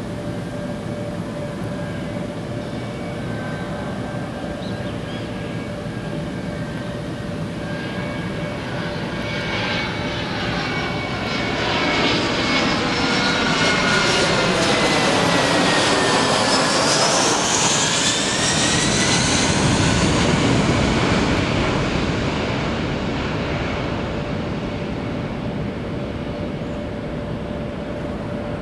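Airbus A320-family airliner's jet engines during a go-around, passing low overhead. The roar builds from about ten seconds in and is loudest in the middle, and its whine sweeps down in pitch as the jet passes. It then fades as the aircraft climbs away.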